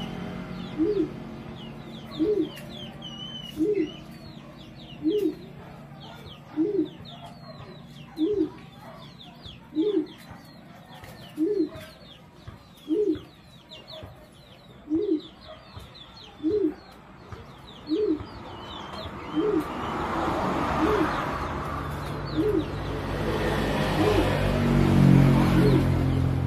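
A caged pigeon giving a single low hooting coo over and over, about one every one and a half seconds, with faint high chirps of small birds above it.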